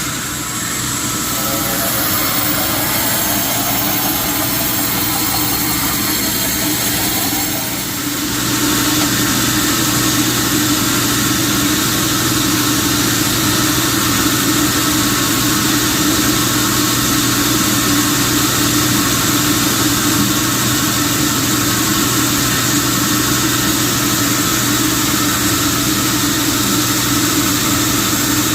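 Sawmill machinery running steadily with a continuous mechanical drone; the sound dips briefly about eight seconds in, then carries on steadier.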